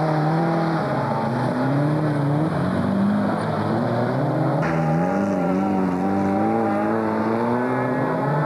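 Folkrace cars' engines running hard on a dirt track, their pitch rising and falling over and over as they accelerate, shift and lift off.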